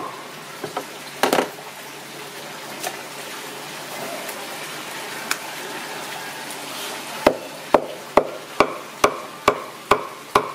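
A cleaver chopping roast pork on a wooden board: a steady run of sharp strokes, about two a second, that starts about seven seconds in. Before it there is a steady hiss of meat frying in oil in a pan, with a few scattered knocks.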